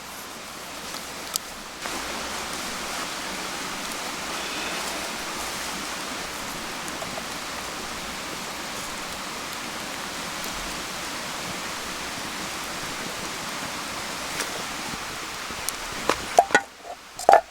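A steady hiss starts suddenly about two seconds in and cuts off near the end, followed by a few sharp knocks and clinks.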